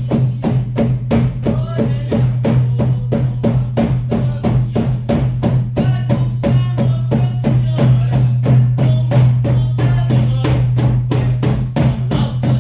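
Shamanic frame drums beaten in a steady, fast, even rhythm of about four strokes a second, with a continuous low ringing tone from the drum heads, used to carry a meditation journey.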